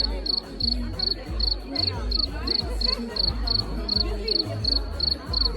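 High-pitched chirping, pulsing about three times a second like a cricket, over music with a deep bass beat. Both cut off suddenly.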